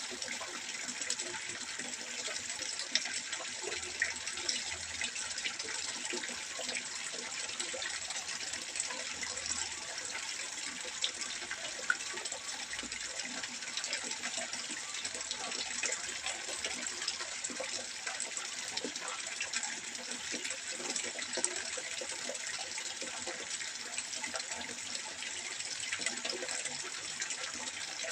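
Water trickling steadily into a fish pond: an even splashing hiss with scattered drips, a few of them sharper.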